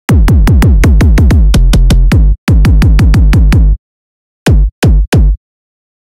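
Electronic kick drum samples from FL Studio Mobile's Monster Kick library, struck rapidly at about six a second, each a deep kick whose pitch falls. The hits come in two quick runs, then three separate hits after a short pause near the end.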